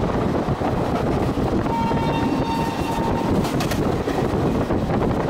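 Indian Railways express train running, heard from on board: a steady rumble of wheels and rushing air. A horn sounds as one steady note for about a second and a half near the middle, followed by a few sharp knocks.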